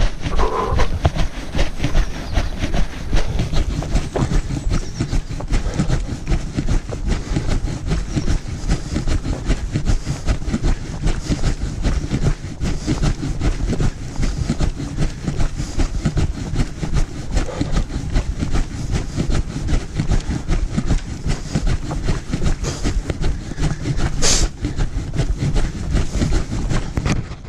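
A runner's own rapid footfalls on a dirt and leaf trail, heard close up through a camera carried at a run, with steady rumble and rustle from the jostled camera. A brief sharp sound stands out near the end.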